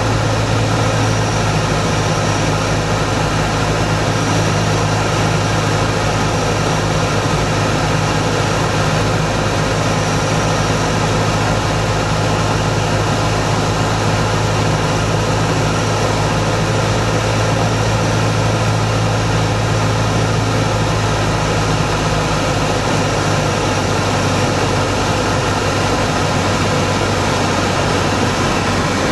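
Steady drone of a light aircraft's piston engine and propeller in cruise flight, heard from inside the cabin of a chase plane, with a strong low hum underneath.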